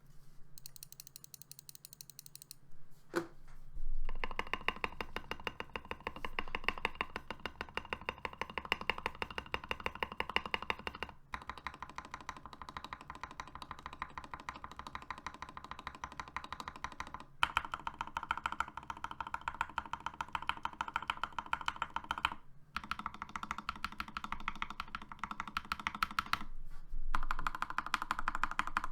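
Fast, continuous typing on a Next Time 75 mechanical keyboard with hand-lubed Gateron Pro Yellow linear switches and PBT Cherry-profile keycaps. It comes in several long runs of rapid keystrokes broken by brief pauses, after a few scattered key presses at the start.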